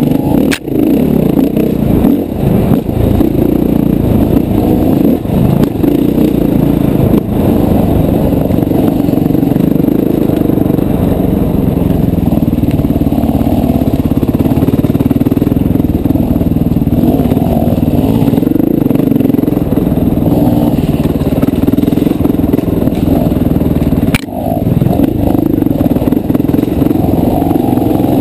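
Dirt bike engine running hard on the trail, its revs rising and falling with the throttle, heard close up from a helmet-mounted camera. The level drops sharply for a moment about half a second in and again near the end.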